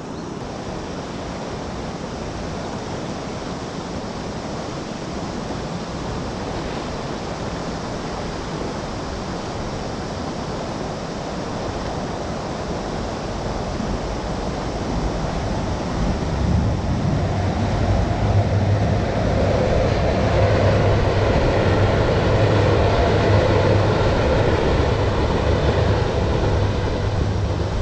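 Rushing river water: a steady noise of the current that grows louder from about halfway through.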